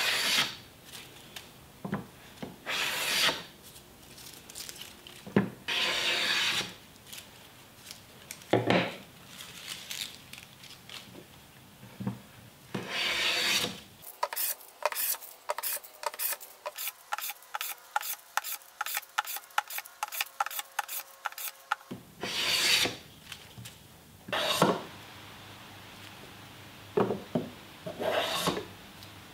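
Homemade Japanese plane (kanna) taking shavings off wooden boards, among them white oak: a series of separate planing strokes, each about half a second to a second long, with pauses between. Midway comes a stretch of quick light clicks, about four a second.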